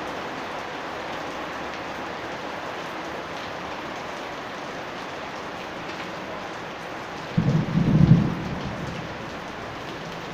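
Steady heavy rain falling on the yard, with a sudden low clap of thunder about seven seconds in that rumbles for a second or two and dies away.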